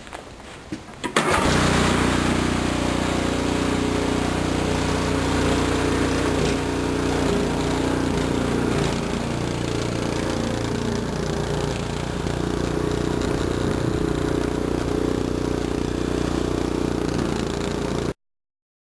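Small petrol engine of a snowblower running steadily at working speed, coming in suddenly about a second in and cutting off abruptly near the end.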